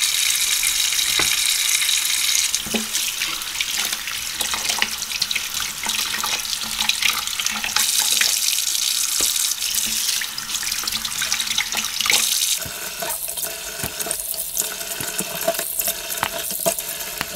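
Water running from a kitchen tap into a sink while raw chicken is rinsed, with scattered small knocks and clatters of handling. The rush of water comes and goes in strength and thins out over the last few seconds.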